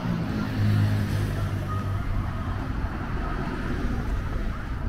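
Street traffic: a motor vehicle's engine running close by, loudest about a second in, over a low rumble of wind on the microphone.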